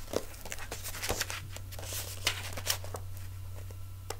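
Paper pages of a storybook rustling and flapping as the book is picked up and opened out: a string of irregular soft crackles and taps, with one sharper tick near the end, over a low steady hum.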